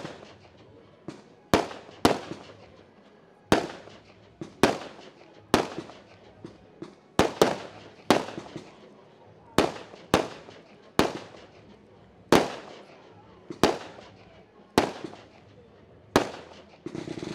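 Firework display: a steady run of sharp bangs, one or two a second, each trailing off in an echo.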